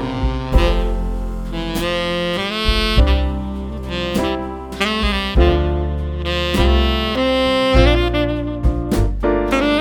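Background music: a jazzy saxophone melody over bass and drums.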